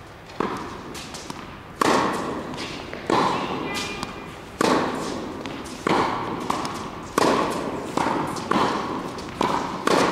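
Tennis ball struck by rackets in a rally on an indoor court: a sharp pop about every second and a half, each one ringing out in the echo of the big hall.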